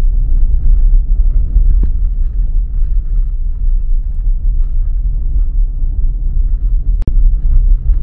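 Steady low rumble of a car driving on the road, engine and tyre noise heard from the moving vehicle. A sharp click with a momentary dropout about seven seconds in.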